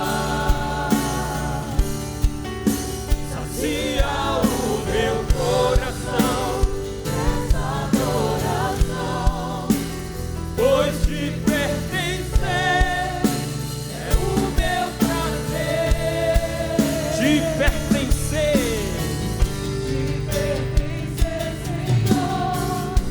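Christian worship song: voices singing a slow, sustained melody with band accompaniment and a steady beat.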